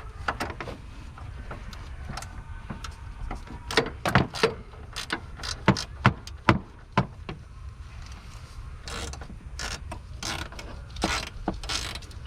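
Metal hand tools clicking and knocking irregularly during work on a car's starter, with ratchet-like clicks and a few sharper knocks in the middle.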